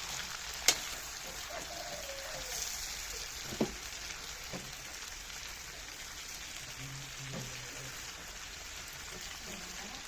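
Food frying in oil in a pan, a steady sizzle, with two sharp knocks, one about a second in and one just before four seconds.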